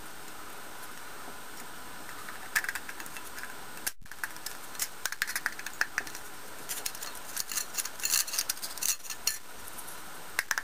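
Thin aluminium pop-can halves crinkling and clicking in the hands as the upper half is worked down over the lower half of a homemade alcohol stove: irregular sharp little clicks over a steady hiss.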